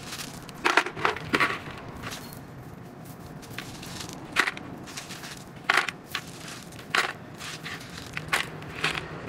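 A hand wrapped in a thin plastic bag scooping and pushing loose potting soil: short, irregular crinkles of the plastic and crunches of the gritty soil, several separate bursts.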